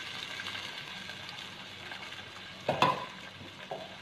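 Water poured into a hot pot of oil, fried onions and a large piece of marinated meat, sizzling steadily and slowly dying down. A short louder sound breaks in about three seconds in.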